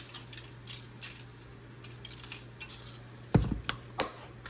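Spice shaker rattling in quick light shakes as seasoning is sprinkled, then two sharp knocks on the counter, the first about three and a half seconds in and the second a moment later. A steady low hum runs underneath.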